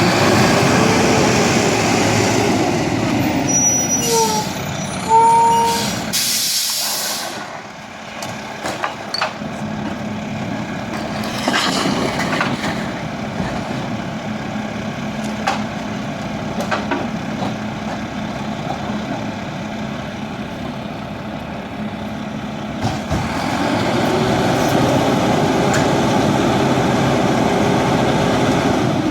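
Garbage truck engine speeding up and holding to drive the packer, with a sharp hiss of air brakes about five seconds in. The engine then runs more steadily and speeds up again near the end for another packing cycle.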